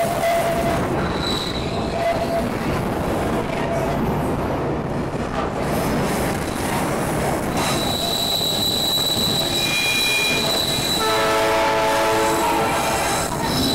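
Trem da Vale museum train running along the track, heard from inside the carriage, with steady rolling rumble. Partway through, the wheels set up a high steady squeal for a few seconds, and near the end a short several-note whistle sounds.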